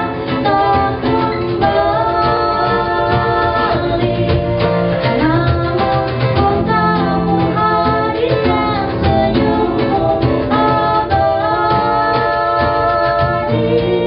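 An acoustic pop band playing: a male and a female singer singing together, with long held notes, over acoustic guitars, keyboard, bass and cajon.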